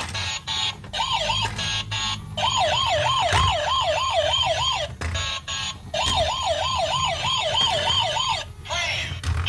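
Toy police car's electronic siren giving a fast warble, rising and falling about three times a second. It stops and starts again twice, with clicks between the bursts.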